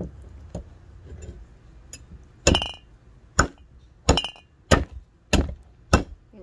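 Hand-forged Chinese cleaver chopping into a frozen pig's trotter: a few light taps, then about six hard blows starting a little over two seconds in, roughly one and a half a second. Each blow is a sharp clink that rings briefly.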